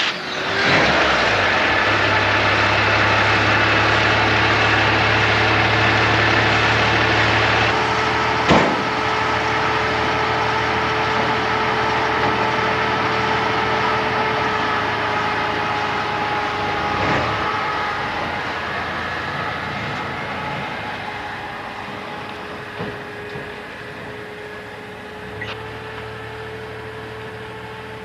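1949 Chevrolet pickup truck's engine idling steadily just after starting, with a steady whine over the running. A single sharp knock comes about eight seconds in, and the engine sound grows gradually quieter over the last third.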